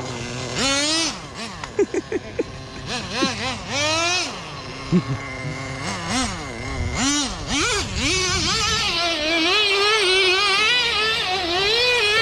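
Radio-controlled car's motor revving in a run of short bursts, each rising and falling in pitch, then held at high revs with a wavering pitch over the last few seconds. A few sharp knocks come about two seconds in and again about five seconds in.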